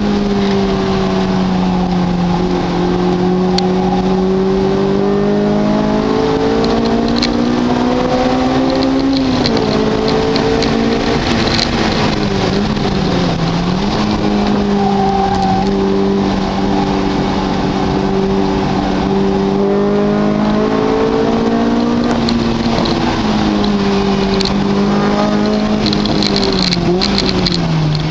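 Car engine running hard at speed while lapping a race circuit, its pitch held fairly steady and climbing slowly, then dipping and recovering as it slows for a corner about a third of the way in, and falling again near the end.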